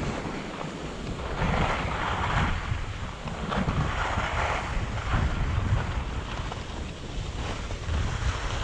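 Wind buffeting a GoPro's microphone on a downhill run over snow, with repeated hissing surges of snow scraping under the edges every second or two.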